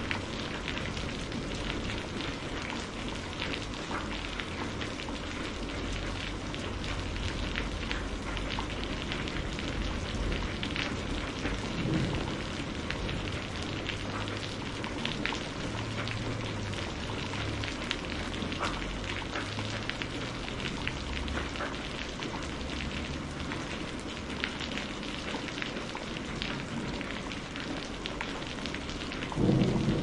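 Steady rain with scattered drops ticking, over low, distant rolling thunder. A louder rumble of thunder builds near the end.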